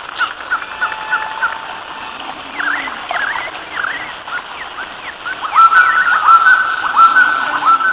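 Birds chirping and calling: many short chirps and swooping notes. About five seconds in, a louder call repeats four times, each note rising and then holding steady.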